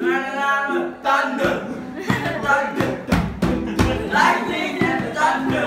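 Music with a singing voice, then heavy drum hits from about a second and a half in, with voices over them.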